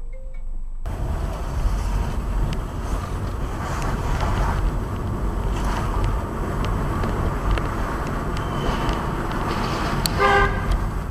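Steady low road and engine rumble inside a moving car, picked up by its dashcam, then a single short car-horn honk near the end.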